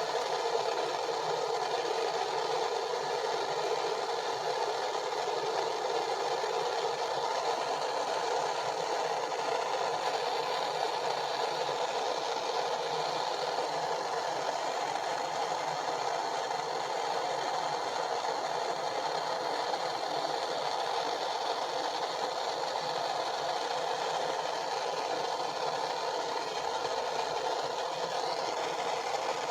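Propane torch burning with a steady, even hiss, its flame heating a fluxed copper pipe joint before soldering.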